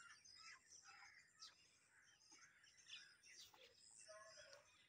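Faint bird chirps scattered over near silence.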